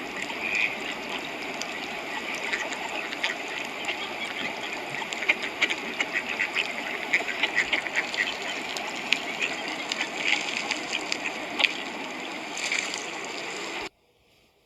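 A flock of ducks quacking together, many overlapping short calls. It cuts off suddenly near the end.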